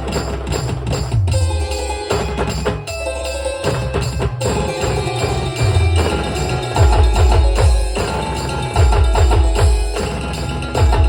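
Loud band music: an instrumental passage with heavy bass and percussion under a melody. The low drum beat becomes heavier and more driving about two-thirds of the way through.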